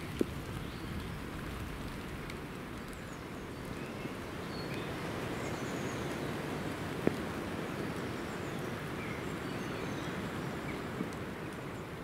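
Steady rain falling on wet woodland, with a few sharp drips striking close by, about a second in, at seven seconds and near the end. Faint, short bird chirps come in and out in the background.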